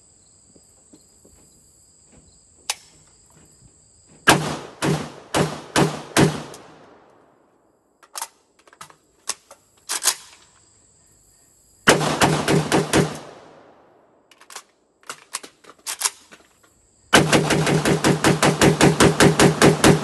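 Draco C AK pistol in 7.62×39 firing with an echoing report: a single shot, then five quick shots, then rapid strings near the middle and from about three seconds before the end, at about six shots a second. A steady high insect buzz sounds between the strings.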